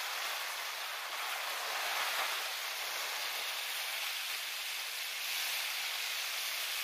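A steady, even hiss with almost no low end and no distinct sounds in it, unchanging throughout.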